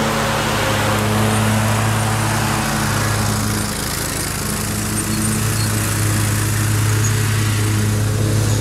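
John Deere Z915B zero-turn mower's 25 hp Kohler engine running steadily as the mower drives past mowing grass; the sound eases slightly about four seconds in, then holds steady again.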